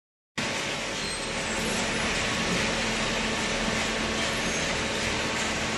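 Hydraulic carton baler running: a steady machine noise with a constant low hum, starting abruptly just after the start.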